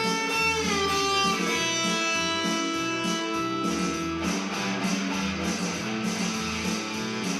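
Blues guitar music: sustained guitar notes with string bends, over a pulsing bass line.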